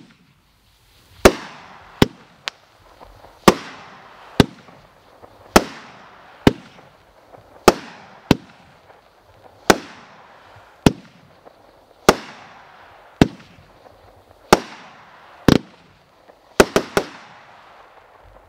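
Red Rhino 'Monkey Business' consumer firework cake firing shot after shot: a string of sharp bangs about one a second, each fading quickly, with three bangs in quick succession near the end.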